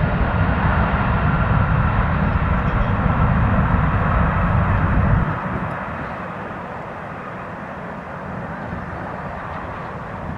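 Jet airliner engine noise, with a heavy low rumble under a wide rushing sound. About five seconds in the deep rumble cuts off abruptly and the level drops, leaving a quieter, fainter jet rush.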